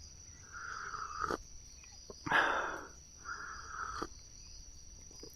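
Two slurping sips of coffee, each ending in a small click, with a breathy exhale between them. Insects drone steadily in the background.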